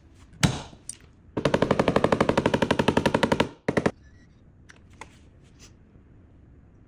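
A single sharp knock, then a rapid mechanical rattle of about a dozen strokes a second lasting about two seconds, and a short final burst of strokes.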